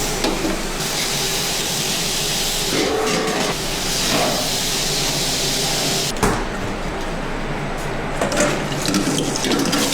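Water gushing steadily from a tap, shut off abruptly with a knock about six seconds in, followed by scattered knocks and clatter.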